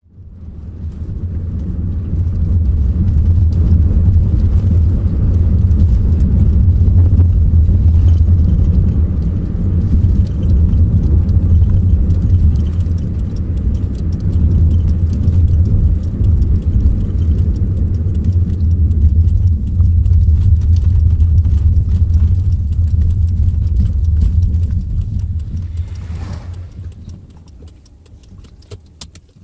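Steady low rumble of a car on the move, which fades out near the end with a few faint clicks.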